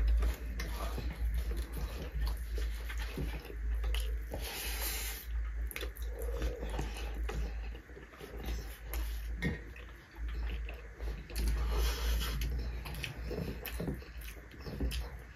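Close-up eating sounds: irregular chewing and wet mouth smacks, with fingers mixing rice on metal plates, over a low steady hum.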